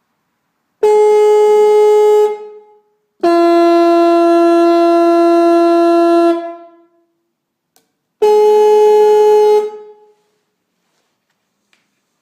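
Restored 1930s Sparks-Withington (Sparton) 6-volt twin trumpet electric horn, its trumpets sounded one at a time: a short blast on the higher-pitched trumpet, a longer blast of about three seconds on the lower-pitched one, then the higher one briefly again. Each blast is a steady tone that cuts off cleanly.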